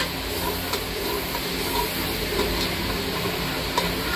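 Curry masala sizzling in a metal pot as a spoon stirs in freshly added yogurt: a steady hiss with a few light clicks of the spoon against the pot.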